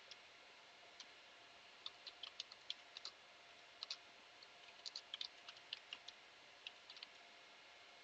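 Faint computer keyboard typing: irregular key clicks coming in a few short runs.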